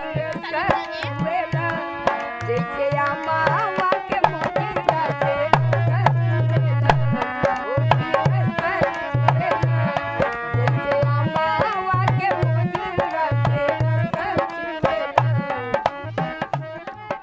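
Harmonium playing the tune of a Bhojpuri folk song in held notes, with a hand drum keeping a steady beat of low thumps and sharp taps.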